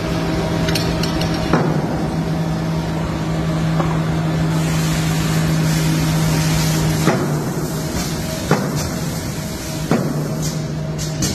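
Hammer blows on wood in a cooperage, about six sharp knocks spaced unevenly a second or more apart, over a steady low workshop hum.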